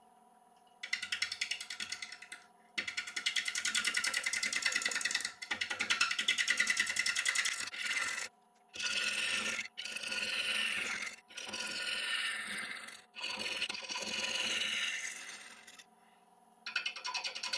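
Bowl gouge cutting a spinning applewood bowl blank on a wood lathe, in a series of passes a few seconds long with short pauses between. Each cut has a fast, even ticking: the tool meets wood only part of each turn because the blank is still out of round, with the lathe's motor humming steadily underneath.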